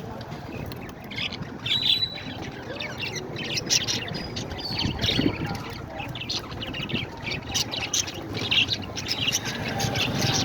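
Parrots chirping and squawking: many short, sharp calls overlapping in a busy chatter, with louder squawks scattered throughout.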